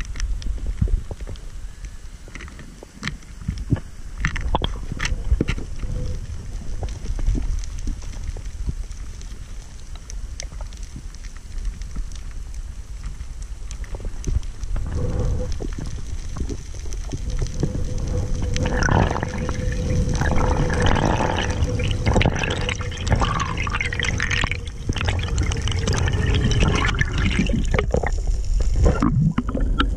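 Underwater sound through an action camera's waterproof housing: a low water rumble with scattered clicks and knocks. It grows busier and louder from about halfway through, with a faint steady hum alongside.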